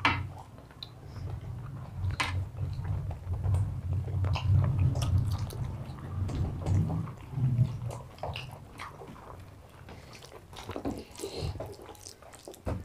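Mutton curry and rice being eaten by hand, close to a clip-on microphone: muffled chewing, heaviest through the first seven seconds or so, with scattered wet mouth clicks and smacks.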